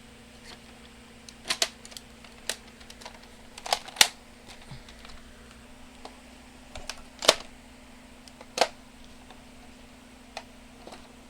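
Plastic clicks and clacks of a Nerf blaster being reloaded and handled, a handful of sharp separate snaps at irregular gaps, the loudest about four and seven seconds in.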